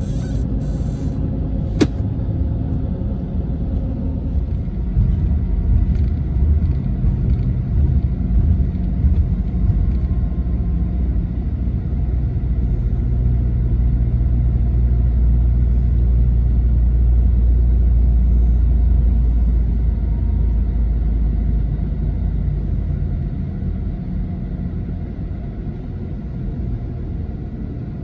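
Intercity bus heard from inside the cabin while driving on the highway: a steady low rumble of engine and road noise that grows louder in the middle and eases off near the end. One sharp click about two seconds in.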